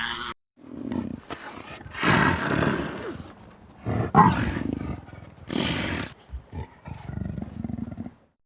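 A farm animal calling loudly, about five rough, drawn-out calls in a row with short gaps between them.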